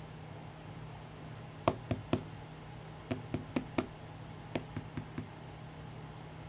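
Light taps and clicks on a hard plastic card holder as a trading card in it is handled and tilted, in three quick runs of three or four taps each, over a faint steady hum.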